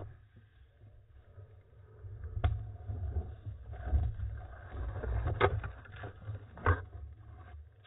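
Handling noise from an iPhone mounted on a .22 pellet rifle's scope as the rifle is swung around: a low rumbling rub with several sharp knocks, the loudest about two and a half, five and a half and near seven seconds in.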